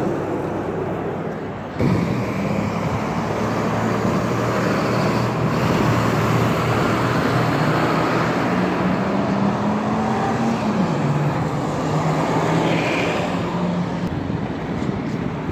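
Street traffic: motor vehicle engines running and passing, a steady low engine drone under road noise. It jumps louder about two seconds in, and the engine note drops in pitch a little over ten seconds in.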